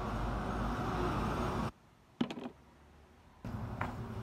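Steady room noise, a low hum with hiss, that cuts out abruptly less than two seconds in. A couple of sharp clicks follow in the near quiet, and the noise returns suddenly near the end.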